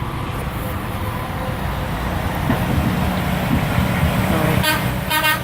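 Semi-truck passing with a steady low engine rumble, then near the end two short toots of its air horn, the second a little longer than the first.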